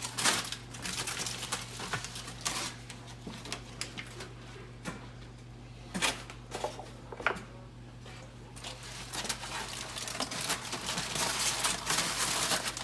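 Kitchen handling noises as a rack of ribs is brought out of the refrigerator and set down: scattered knocks and clicks, then a longer stretch of rustling near the end, over a steady low hum.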